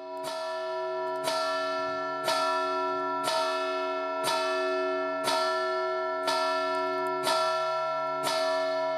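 The largest bell (campanone) of a three-bell Marinelli-cast church peal, struck in single even strokes about once a second, nine strokes in all, each ringing on under the next. This is the toll calling the faithful to Mass.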